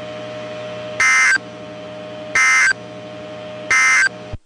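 EAS SAME digital data tones from a NOAA Weather Radio broadcast: three short, loud screeching bursts a little over a second apart, the End of Message code that closes the tornado warning. A steady hum from the radio stream runs beneath them, and the audio cuts off suddenly near the end.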